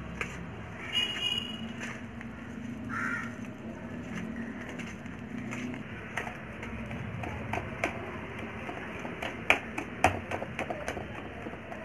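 Wire whisk beating cake batter in a stainless steel bowl: quick irregular clicks and scrapes of the wires against the metal, busier in the second half. Two short pitched calls come through about one and three seconds in.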